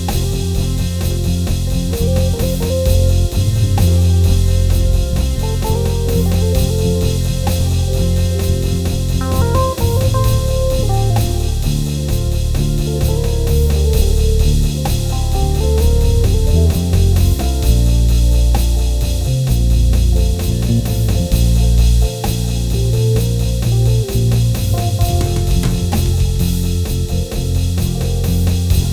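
Worship music on keyboard: sustained chords and a heavy low bass line over a steady drum-kit groove.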